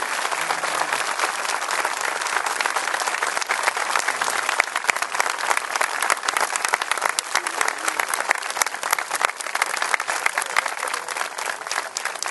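Crowd applauding: dense, steady clapping that thins in the second half into more separate claps.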